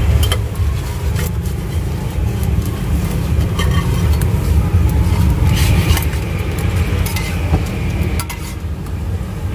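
A steady low rumble, with a few short metallic scrapes and taps of a spatula on the crepe griddle, the loudest about six seconds in.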